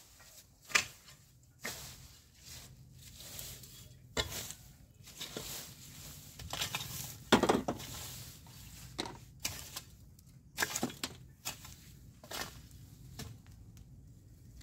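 Irregular knocks and scrapes of a long-handled wooden garden tool working the soil and weeds, about a dozen strokes spaced unevenly, the loudest about seven and a half seconds in.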